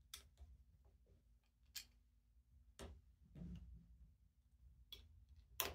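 Small plastic Lego plates clicking as they are handled and pressed together: a handful of sharp separate clicks with a short scrape about halfway, the loudest click near the end.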